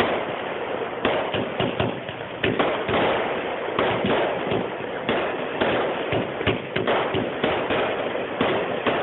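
Fireworks going off close by: a dense, irregular run of sharp pops and crackles, several a second, over a steady crackling hiss.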